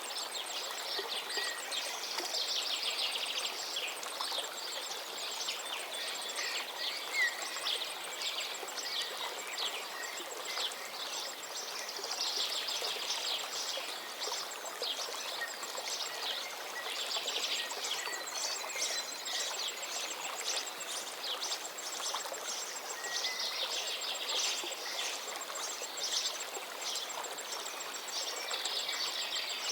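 River water flowing and babbling steadily, with a few faint bird chirps and a thin, high ticking above it.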